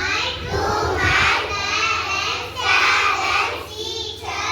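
Children singing together, in phrases about a second long with short breaks between them.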